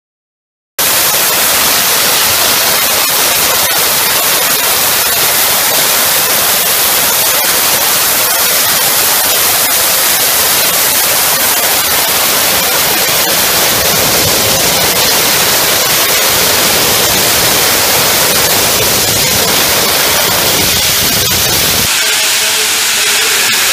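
Steam locomotive 46100 'Royal Scot' blowing off steam low at the front, near the cylinders: a loud, continuous hiss that starts abruptly about a second in and thins slightly near the end.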